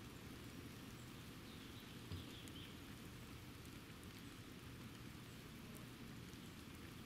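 Faint, steady rain hiss with scattered drops ticking, and a single dull thump about two seconds in.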